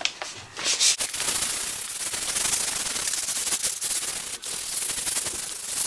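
320-grit sandpaper rubbed by hand over a primed body-filler bumper, making a steady scratchy rasp that starts about half a second in.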